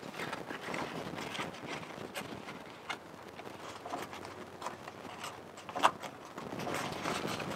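Stiff birch bark rustling and crackling as it is handled, bent into a cylinder and its tabs worked together, with many small clicks and one sharp click about six seconds in.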